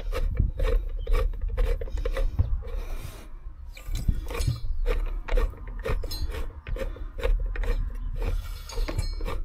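A worn, rusted Land Rover spare tire carrier winch turned by hand gives a rasping, scraping rub with a run of irregular clicks. Its winding mechanism is broken and it no longer works.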